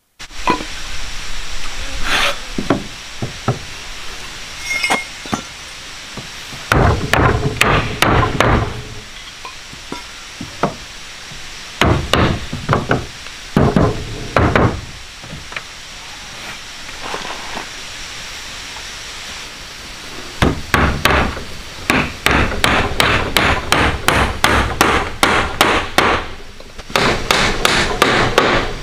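Tool blows on wood, most likely a hammer: bursts of quick, sharp strokes separated by pauses, with the longest run near the end.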